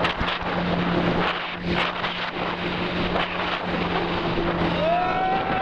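Wind buffeting the microphone over the rush of water past a moving motorboat, with the boat's engine humming steadily underneath. Near the end a long, level high-pitched call comes in and holds.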